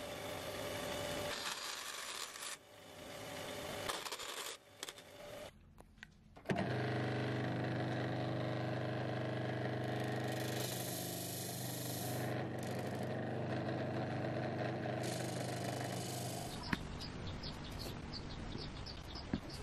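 Band saw cutting small pieces of curly maple, in short broken stretches. About six seconds in, a disc sander starts up and runs with a steady hum while a curved maple piece is pressed against it; this is the loudest sound, and it ends about three seconds before the end, leaving light clicks.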